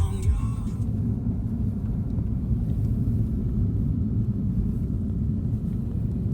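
Steady low rumbling noise with no distinct events; music fades out within the first second.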